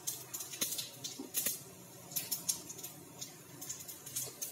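Cumin seeds crackling in hot mustard oil in a kadhai, with dried red chillies and bay leaf: irregular small pops and crackles.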